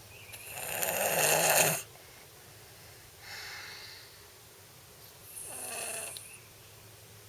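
A person snoring in his sleep. A loud snore builds and cuts off sharply about two seconds in, and two quieter snoring breaths follow a few seconds apart.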